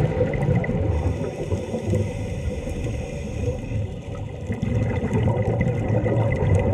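Steady, muffled low rumble of water heard underwater through a submerged camera.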